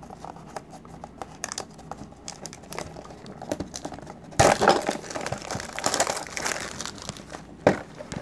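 Plastic shrink-wrap on a cardboard card box crinkling as hands peel and handle it: a string of rustles that gets louder about halfway through.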